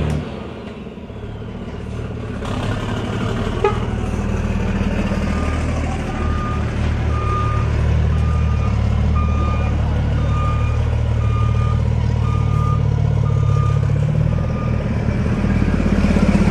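Heavy truck engine running with a low rumble that builds over the first few seconds. From about five seconds in until near the end, a reversing alarm beeps steadily, about one and a half beeps a second.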